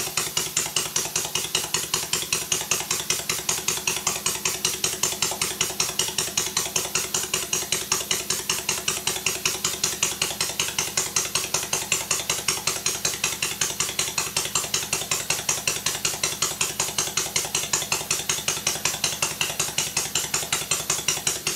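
Stuart Sirius model steam engine running steadily with its crankcase base off: a fast, even beat of about six or seven pulses a second over a continuous hiss.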